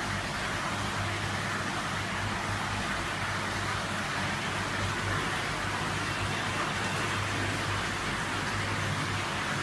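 Aquarium filter and pump running: a steady rush of water with a low, even hum.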